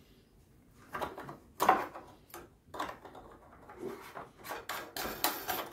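A fabric lamp shade and its socket ring being handled and fitted onto the lamp holder: a string of clicks, knocks and scrapes with rustling between them, the sharpest about a second and a half in and a busy run of them near the end.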